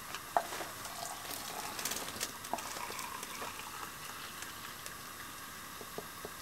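Water heating to the boil in a glass pan on a propane heater-stove, a steady hiss with a few light clicks and taps.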